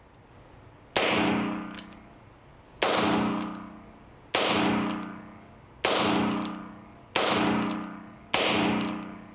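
Six shots from a Heritage Barkeep compact single-action .22 LR revolver, fired one at a time about one to two seconds apart. Each crack rings on and fades in the echo of the indoor range.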